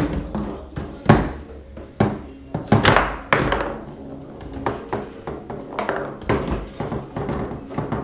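Foosball table in play: a run of sharp knocks and clacks as the ball and the rods' plastic figures strike one another and the table, the loudest about a second in and around three seconds in.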